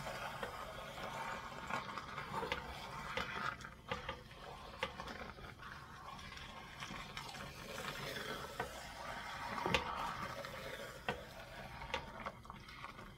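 Wooden spoon stirring cooked chickpeas and vegetables in a stainless-steel pot, a steady scraping and shuffling with light knocks of the spoon against the pot, the sharpest about ten seconds in.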